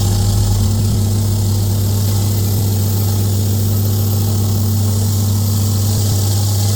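An electric power tool's motor running at a steady speed: a constant low hum with a hiss above it.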